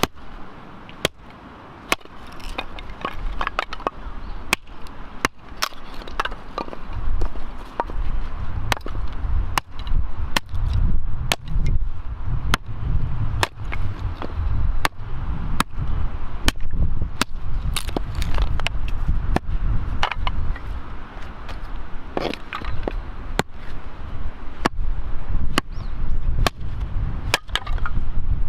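Axe chopping wood: sharp strikes about once a second, with a low rumbling noise setting in about a quarter of the way in.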